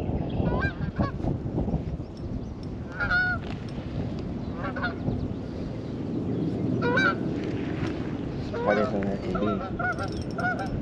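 Geese honking in short separate bouts, with a longer run of honks near the end, over a steady low background rush.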